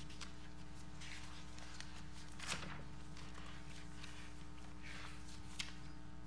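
Footsteps and paper rustling as a person walks up to a podium, over a steady electrical hum in the audio feed. A louder shuffle comes about two and a half seconds in, and a short click near the end.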